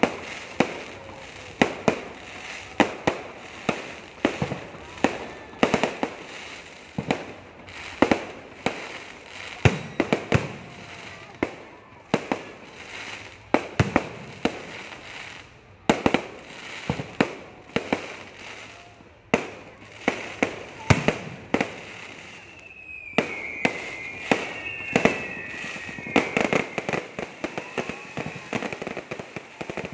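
Fireworks display: aerial shells bursting overhead in a steady run of sharp bangs, roughly one to two a second. About three-quarters through a wavering high whistle sounds, and the bangs give way to denser crackling near the end.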